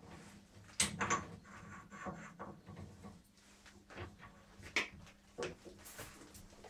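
Irregular metal clicks and knocks with the rustle of a padded jacket as a workpiece is mounted in a stopped lathe's three-jaw chuck; the sharpest knocks come about a second in and near five seconds. A faint steady hum runs underneath.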